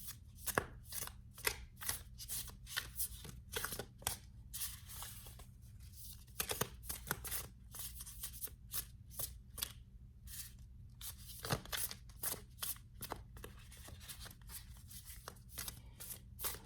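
A tarot deck being shuffled by hand: a long run of quick, irregular card slaps and flicks, a few each second.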